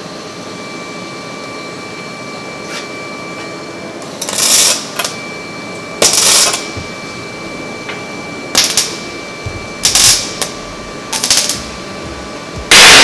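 Stick welder spot-welding a bundle of welding rods together: about six short bursts of arcing, each under half a second and a second or two apart, with the loudest near the end. A faint steady high tone runs underneath.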